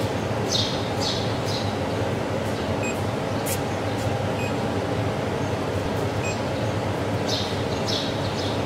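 Steady machine hum from the welding unit's running equipment, with three faint short beeps about a second and a half apart as the touchscreen is pressed.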